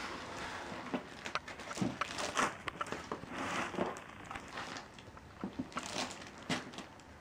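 Clear plastic wrap crinkling and rustling in irregular crackles as a plastic-sealed laptop is handled and shifted in its foam packing.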